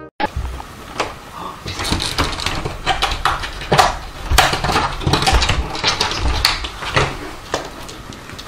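A cat flinging itself against a door, with irregular knocks and thuds and scuffling against the door and floor.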